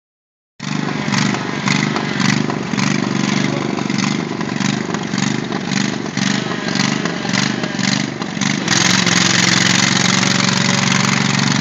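Lawn tractor engines running under load, surging about twice a second; about nine seconds in the sound jumps to a steadier, louder run.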